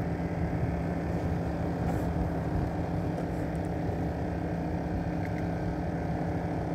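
Boat engine running steadily, a low, even hum with no change in pitch.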